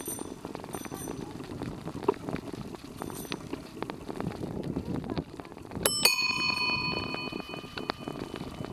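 A bicycle bell rung twice in quick succession about six seconds in, its ring fading over about two seconds. Underneath runs the steady rumble and rattle of bicycles rolling along a gravel path.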